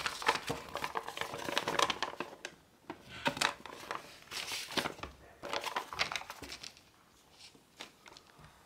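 Sheet of precreased origami paper rustling and crinkling as hands flex and smooth its pleats, a run of quick papery crackles that dies away about seven seconds in.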